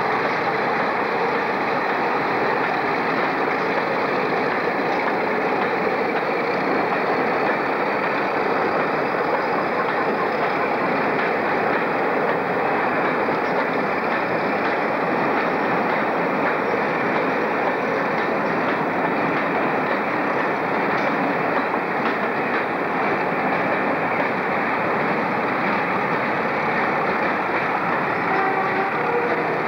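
Passenger train's coaches rolling along the rails as the train pulls away, a steady, continuous rail noise. A faint high whine slowly rises in pitch in the first half.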